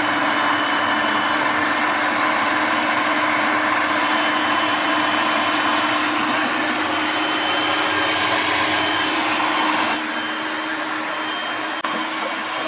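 Blender motor running steadily at high speed, pureeing fruit with water. It gets a little quieter about ten seconds in.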